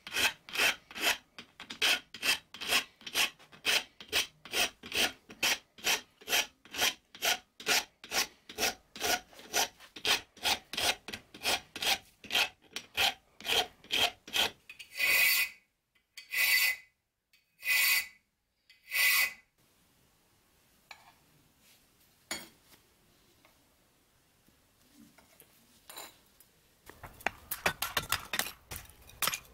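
Steel hand file scraping back and forth across the serrated spine of a steel knife blade held in a vise: quick strokes, about three a second, then four slower, longer and louder strokes. After a quiet pause, a rough crunching of wood being cut near the end.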